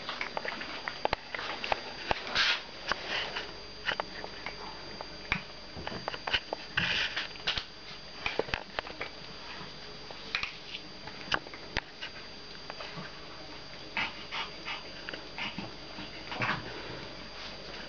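Puppies playing and scuffling on a rubber mat over a tile floor: many short, sharp clicks and scrapes, with a few brief noisy huffs and sniffs.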